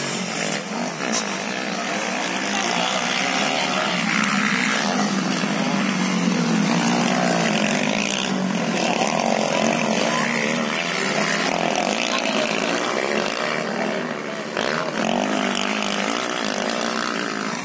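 Motocross bikes racing around a dirt track, several engines overlapping, their pitch rising and falling as the riders open and close the throttle.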